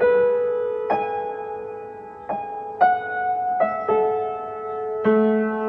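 Slow piano music: single notes struck one at a time, each ringing and fading before the next, with lower notes joining near the end.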